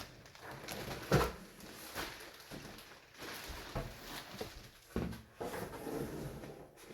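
Floor mats being pulled out of a cardboard shipping box: irregular rustling and scraping, with a sharp knock about a second in.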